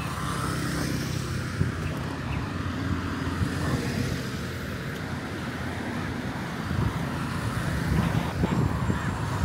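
Road traffic: engines of passing vehicles running, with a steady engine hum that swells near the start and again in the last few seconds.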